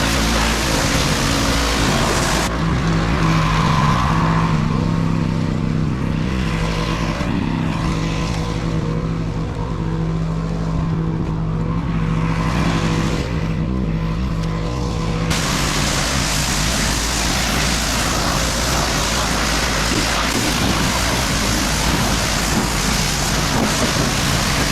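Pressure washer running with its water jet spraying in a loud hiss over the machine's steady hum. The spray stops about two seconds in, leaving the hum alone, and starts again a little past halfway.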